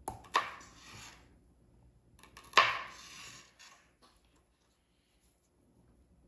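Two sharp knocks on a cutting board about two seconds apart, each followed by about a second of crackly noise, as a yellow bell pepper is cut up and its pieces handled.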